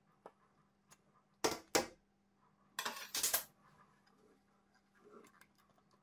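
Small hard objects clinking against a hard surface: two sharp clinks, then a quick cluster of clatter about a second later, over a faint steady hum.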